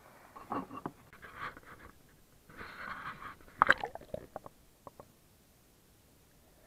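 Hand and camera going into a river to release a caught gudgeon: splashing and sloshing water, a short hiss of bubbles, then a cluster of sharp, muffled knocks and clicks underwater, loudest about three and a half seconds in, tailing off into a few single ticks.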